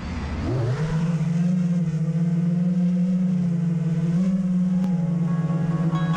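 FPV quadcopter's ZMX 2205 brushless motors with Gemfan 5152 props spinning up about half a second in, then running steadily at idle with a slight wavering in pitch.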